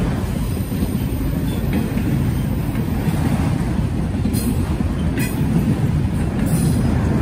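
Norfolk Southern freight train's cars rolling past, a steady loud rumble with a few sharp metallic clicks from the wheels.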